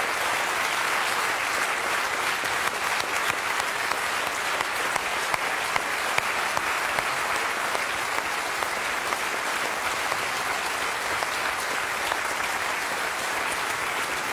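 Large seated audience applauding steadily, many hands clapping at once.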